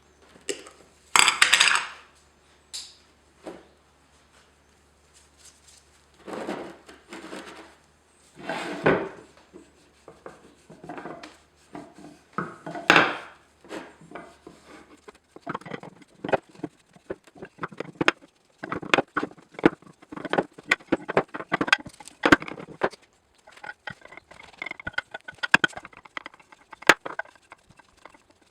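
Irregular knocks, clinks and short scrapes of wood and metal parts and hand tools being handled on a workbench, coming thicker and faster in the second half.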